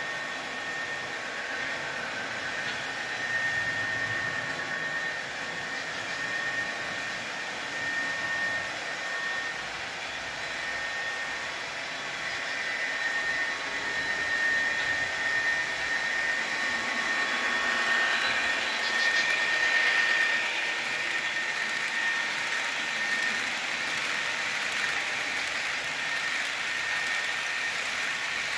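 HO scale model freight train running along the track: a steady rolling hiss with a thin high whine. It grows louder for several seconds in the middle.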